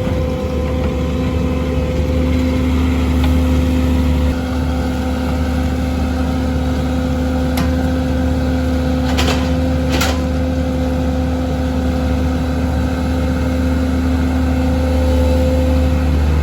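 An engine running steadily at a constant speed, with a few brief sharp clicks about halfway through.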